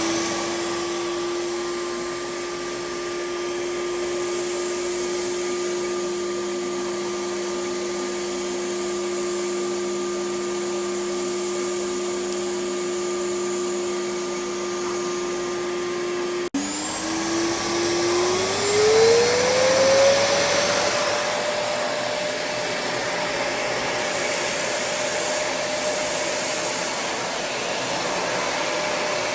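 Hoover 2000 W canister vacuum cleaner running, a steady motor whine over a rush of air. About two-thirds of the way through there is a momentary break, then the whine climbs in pitch over a few seconds and settles at a higher, steady note.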